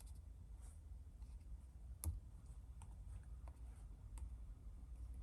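Faint, irregular clicks and taps of a fingertip pressing on the Nissan Leaf's replacement touchscreen digitizer as its touch response is tested, about six in all, the loudest about two seconds in, over a low steady hum.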